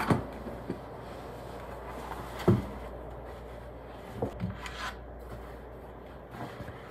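Packing-up handling sounds at a wooden table: a few soft knocks, the loudest about two and a half seconds in, and a fabric tote bag brushing close by, over a steady low room hum.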